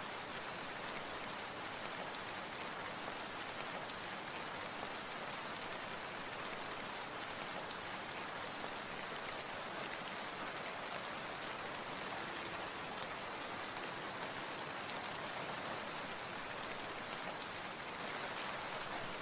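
Steady rain falling: an even hiss of many drops, with faint ticks of single drops scattered through it.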